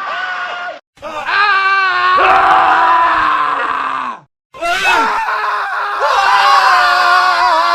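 Men screaming, one separate scream after another with abrupt silent cuts between them. A short tail ends just under a second in. A long scream follows with a wavering pitch. The last scream starts after a second cut and grows louder partway through.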